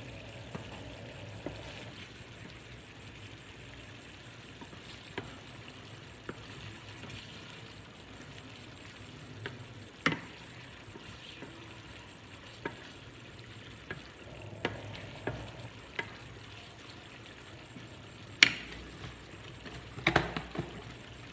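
Minced meat sizzling in a frying pan, with a wooden spoon stirring and knocking against the pan now and then. A sharp knock comes a few seconds before the end, followed by a short clatter of knocks.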